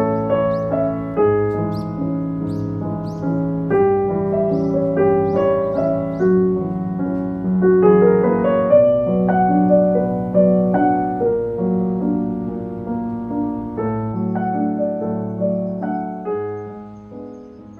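Background piano music, a melody of held notes that fades out near the end.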